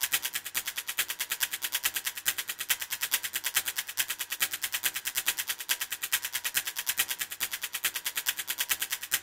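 A rapid, even train of sharp clicks, many a second, high and thin with little low end, running steadily like a crackle.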